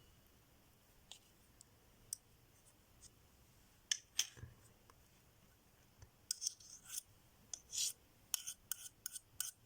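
Light clicks and scrapes of small kitchen utensils and containers being handled, sparse at first and coming thicker in the last few seconds.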